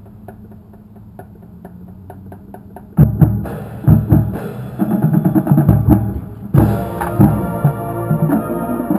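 High school marching band starting its show: about three seconds of evenly spaced sharp clicks, roughly three a second, counting off the tempo, then the full band comes in loud with drums and brass, swelling fuller about seven seconds in.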